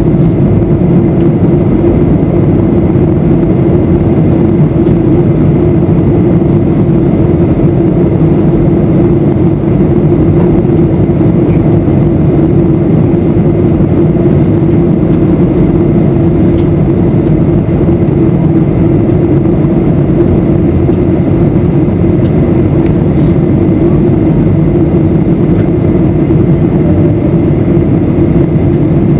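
Steady cabin noise of a Boeing 737-800 in flight: the drone of its CFM56-7B turbofan engines and rushing air, with a steady low hum.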